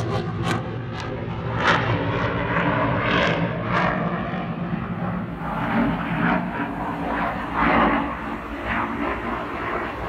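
Jet aircraft flying high overhead: a steady, rough engine rumble, with crackling bursts in the first few seconds that fade as it moves away.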